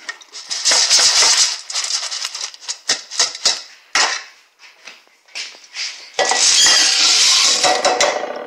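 Wet rinsed beans shaking and clinking in a metal colander, then poured out in a continuous rush into a slow cooker's crock about six seconds in.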